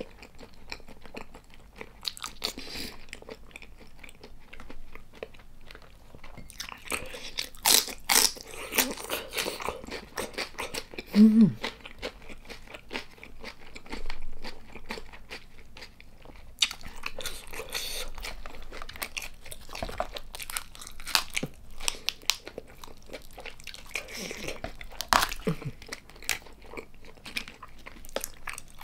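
Close-miked chewing of a mouthful of soy-marinated raw tiger prawn: irregular smacks, clicks and crunches of a closed mouth. There is one short low hum about eleven seconds in.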